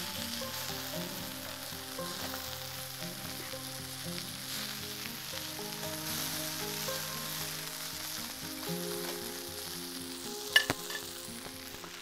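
Chicken pieces sizzling steadily as they fry in oil on a wide flat pan, with one sharp clack about ten and a half seconds in.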